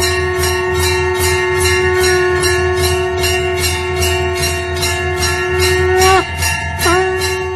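Temple bell ringing rapidly and evenly during the lamp-waving, about three to four strokes a second. It sounds over a steady held drone tone that dips in pitch twice near the end.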